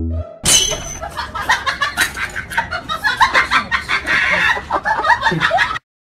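A dense run of rapid, overlapping bird calls, loud and busy, that starts about half a second in and cuts off suddenly near the end.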